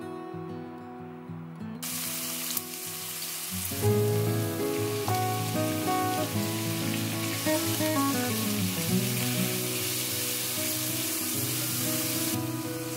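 Chopped onion sizzling in oil in a stainless steel sauté pan, a steady hiss that starts suddenly about two seconds in, over gentle background music.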